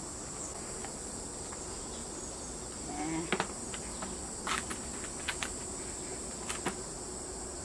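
Steady high-pitched chorus of insects chirring, with a few sharp clicks from about three seconds in.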